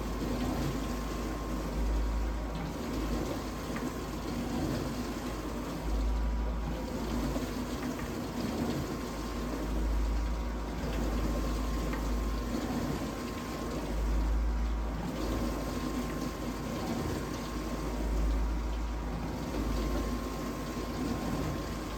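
Vintage dishwasher running its wash cycle: the pump motor hums while water sprays around inside the tub, swelling and fading about every four seconds. The owner thinks the pump sounds restricted, with the water no longer hitting the tub at full force.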